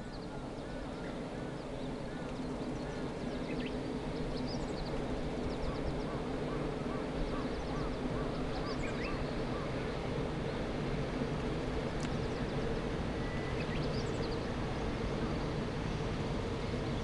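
A steady low rumble that builds over the first few seconds and then holds, with small birds chirping now and then over it.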